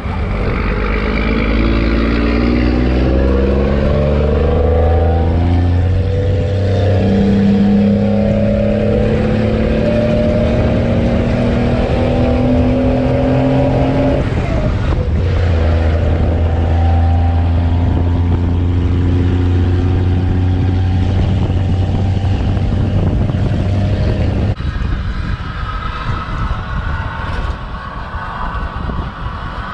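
A 1996 Cummins 12-valve 5.9 L 6BT inline-six turbo diesel, running on waste motor oil, accelerates while pulling a heavy gooseneck trailer. Its note climbs in pitch and drops twice as it shifts up, then holds a steady pull before easing off abruptly near the end.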